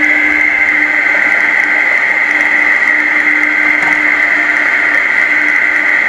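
Food processor motor running steadily with an even whine, pureeing peas for a pea guacamole until smooth.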